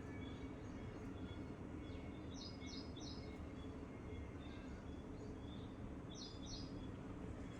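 Wild birds chirping: short high notes, with a quick run of three about two and a half seconds in and a pair near the end, over a steady low background rumble.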